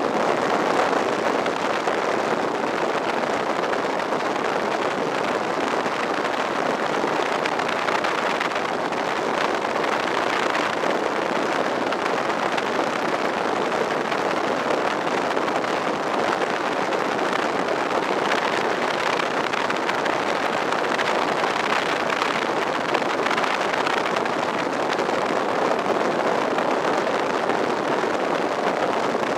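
1940 WACO UPF-7 biplane's seven-cylinder Continental radial engine and propeller running steadily as the plane taxis, heard from the open cockpit as a loud, even engine noise.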